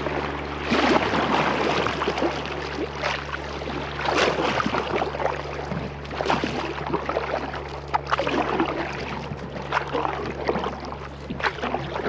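Canoe paddles taking steady forward strokes, each dip and pull making a short watery splash about every second or so. Water washes along the hull between strokes, over a steady low hum.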